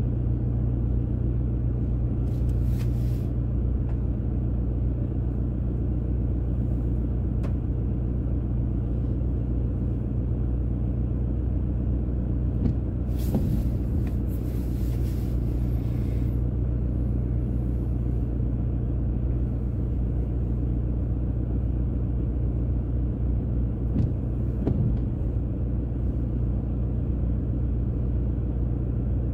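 Steady low rumble of a car's engine heard from inside the cabin, with brief hissing noises about two and a half seconds in and again from about thirteen to sixteen seconds.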